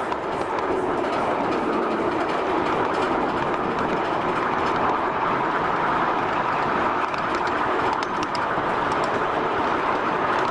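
Ride-on miniature live-steam train running along the track, its wheels rumbling steadily on the rails, with light clicks in the second half.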